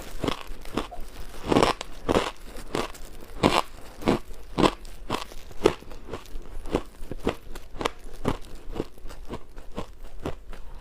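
Ice being bitten and chewed close to the microphone: a steady run of sharp crunches, about two a second, coming closer together and lighter in the second half.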